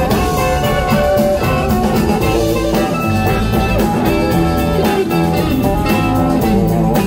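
Live blues-rock band playing: two electric guitars over electric bass and drum kit, steady and loud, with some notes sliding in pitch.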